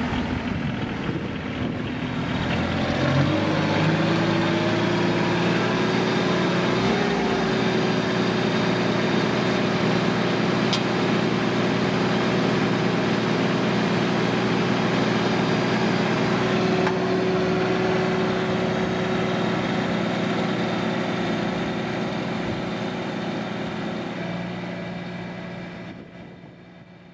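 Mahindra 2815 HST compact tractor's diesel engine running, speeding up a few seconds in and then holding a steady speed. The sound fades out near the end.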